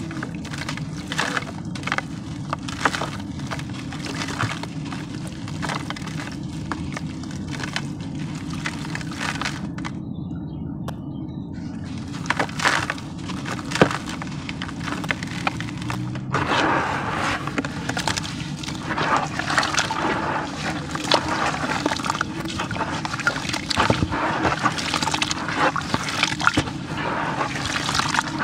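Close-miked dry, dusty sand crumbling and crunching between fingers into a bucket, with many sharp crackles. From a little past halfway it turns to a denser, gritty wet squishing as the sand is worked into water. A steady low hum sits underneath.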